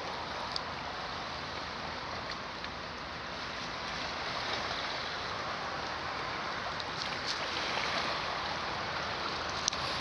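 Small lake waves lapping against shoreline stones: a steady watery wash with occasional light splashes.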